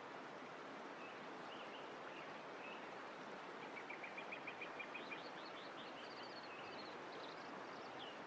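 Outdoor nature ambience: a steady rushing hiss under songbirds chirping. A quick trill of repeated notes comes about halfway through, with higher chirps after it.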